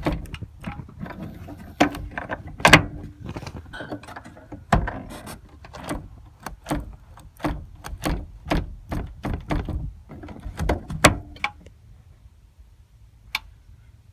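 2013 Ford Flex liftgate latch and its manual release being worked over and over: a string of sharp mechanical clicks and clacks, about two a second through the middle, thinning out near the end. The latch is jammed and does not let go.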